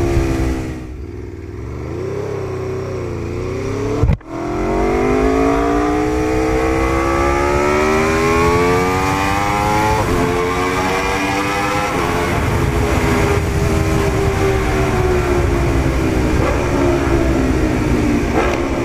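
Aprilia RSV4's V4 engine heard on board the motorcycle under hard acceleration. Its pitch falls at first, breaks off suddenly about four seconds in, then climbs for several seconds and holds a high, fairly steady note that eases down near the end.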